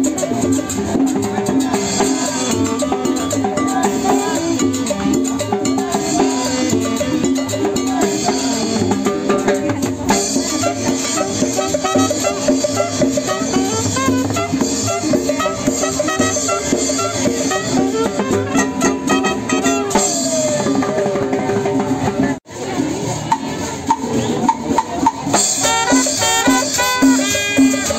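Live street band playing Latin dance music: saxophone and trumpet over upright bass, drums and a scraped metal güiro, with a steady beat. The music drops out for an instant about three-quarters of the way through, then the horns come back strongly near the end.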